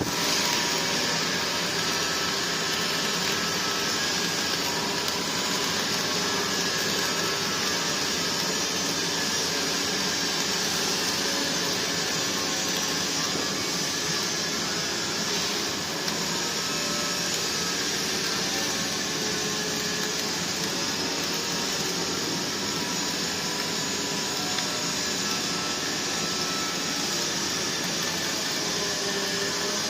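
CO2 MIG welding arc burning in a steady, unbroken hiss and crackle.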